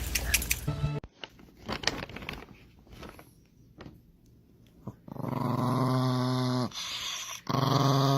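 A dog growling in two long, steady growls, starting about five seconds in. Before that, a second of noisy clatter, then near quiet with a few soft taps.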